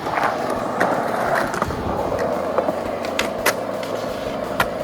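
Skateboard wheels rolling steadily along the ground, with a few sharp clacks in the second half.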